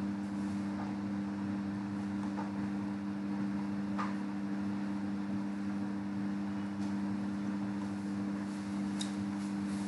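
A steady low electrical hum made of two even tones, over a faint hiss, with a few faint clicks; the clearest click comes about four seconds in.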